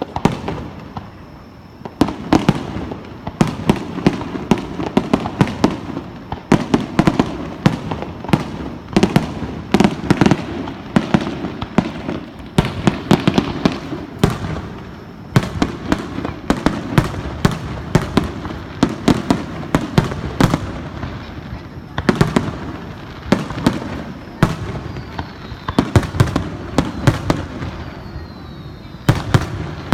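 Fireworks display: a dense barrage of sharp bangs and crackling shell bursts, several a second, over a continuous low rumble. It starts about two seconds in after a quieter moment and eases off briefly a few times.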